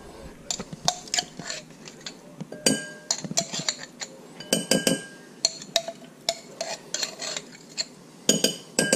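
Metal spoon scraping and clinking inside a small glass jar of pesto sauce, knocking the pesto out into a glass bowl. The glassy clinks come in repeated clusters, each with a short ring.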